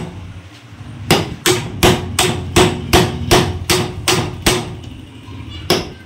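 Hammer striking the lattu part to drive it into its groove in a sewing machine head: a run of quick, even metal strikes about three a second, each ringing briefly, then a pause and one more strike near the end.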